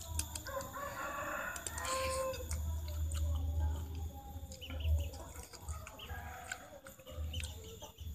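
Domestic chicken calling, loudest in the first two seconds or so, with scattered light clicks and a low rumble underneath.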